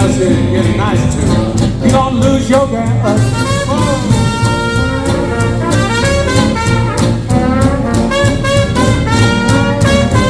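Live hot-jazz swing band playing an instrumental passage, with brass horns carrying the melody over a steady rhythm section beat.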